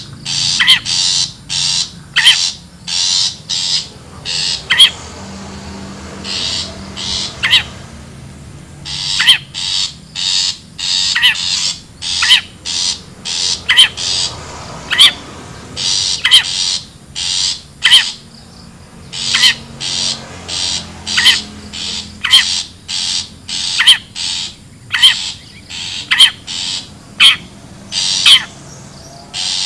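Long-tailed shrike (cendet) giving harsh, scratchy squawking calls in a repeated series, about one or two a second, with a couple of short pauses: the wild shrike call used as a lure.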